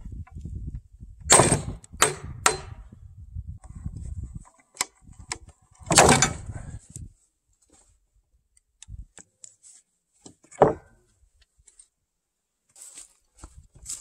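Steel sliding-arm bar clamp being worked on a squared timber beam: scraping handling sounds with three sharp metallic knocks in quick succession about a second in, a louder knock around six seconds and another near eleven seconds, with scattered light clicks.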